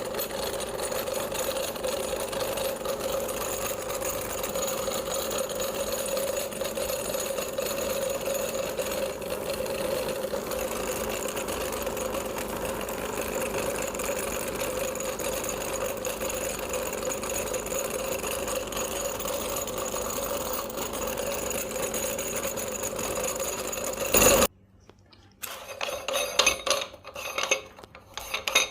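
Electric meat grinder's motor running steadily while grinding candy. It cuts off suddenly near the end, followed by a few clinks and knocks.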